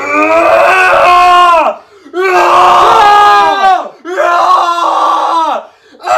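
Super Saiyan-style power-up screaming: three long, loud, drawn-out yells, each falling in pitch as it dies away, with a fourth starting near the end.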